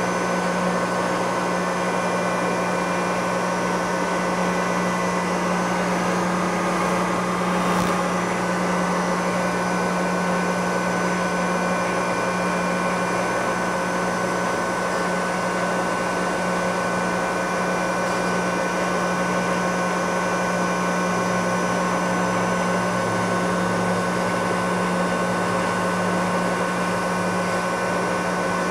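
Supermax YCM-40 CNC knee mill running a cut: the spindle turns steadily while an end mill machines an aluminium part. The result is a constant hum with several high steady tones and no breaks.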